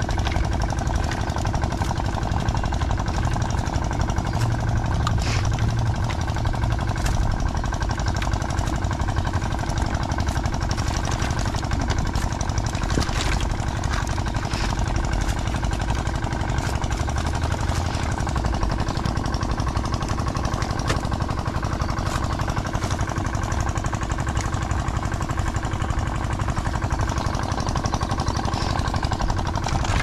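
Boat engine running steadily, with occasional light clicks and rattles.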